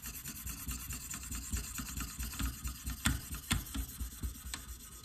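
600-grit diamond stone on a KME guided-rod sharpener stroked back and forth along an AUS-10 steel knife edge: a continuous scratchy rasp of repeated short strokes, with a few sharp ticks in the second half. This is the mid-grit stage of the progression, refining the scratch pattern left by the 300-grit plate.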